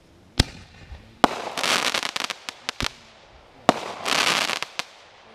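Aerial fireworks going off: three sharp bangs, about half a second in, at a second and a quarter, and past three and a half seconds. The last two are each followed by about a second of dense crackle, with a few single pops in between.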